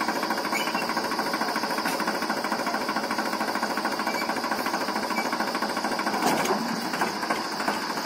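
Swaraj 434 tractor's diesel engine running steadily with a fast, even beat.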